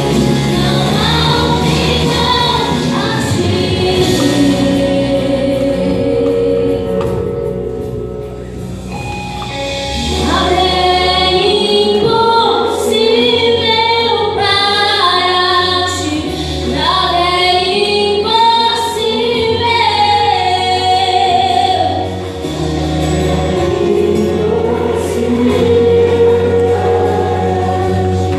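Female voice singing a Portuguese gospel worship ballad in long, held phrases over instrumental accompaniment, with the bass coming in fuller about ten seconds in.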